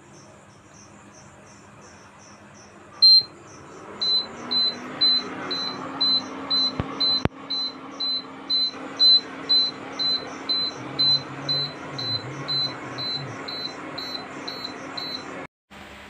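Induction cooker's buzzer beeping continuously at a high pitch, about twice a second, after a single beep, the alarm that goes with its E0 error code. A low steady hum starts with the beeping.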